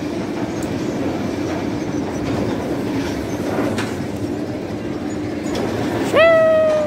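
Steady rumble of the Oblivion dive coaster's train moving along its elevated track toward the vertical drop. About six seconds in, a single voice lets out a loud rising whoop that holds its pitch, the loudest sound here.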